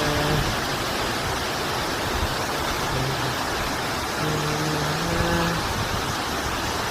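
Waterfall's steady, loud rush of falling water. A few short pitched sounds rise above it, the longest from about four to five and a half seconds in.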